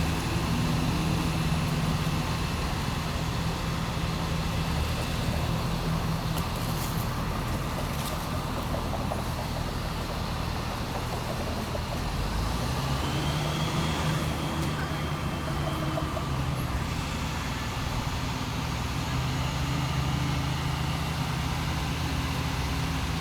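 Steady low drone of heavy engines running, with urban street traffic noise around it.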